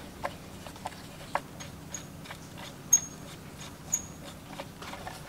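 Light metal clicks and tinks, a few of them with a brief high ring, from hand tools and loose metal parts of a Foley Belsaw chain grinder being taken apart by hand. The sharpest tink comes about three seconds in.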